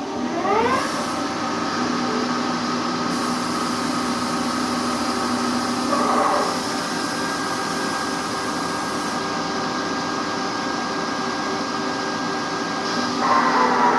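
Machine-tool spindle running with a steady mechanical whine and hum. The pitch climbs in the first second as it comes up to speed, and a louder stretch with sliding tones comes in near the end.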